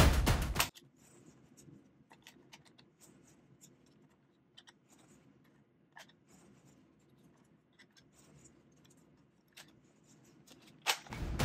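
Drum-driven background music cuts off just under a second in. Then come faint, scattered plastic clicks and scrapes as foam darts are loaded by hand into a Nerf N-Series Strikeback blaster. The music returns near the end.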